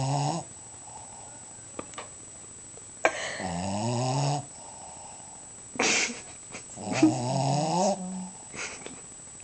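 A Shih Tzu dog snoring in its sleep: two long snores with a rising and falling pitch, about four seconds apart, and a short sharp breath between them.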